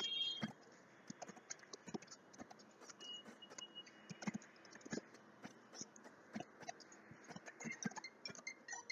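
Computer keyboard typing: a run of faint, irregular keystrokes.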